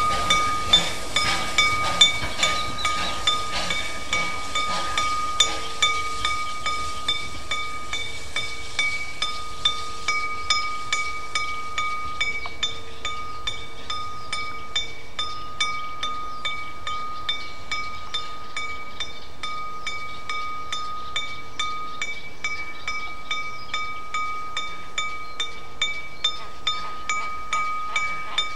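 The onboard bell of Danish class F 0-6-0 tank locomotive No. 656 ringing with a steady, even stroke. Each clang carries a clear ringing tone.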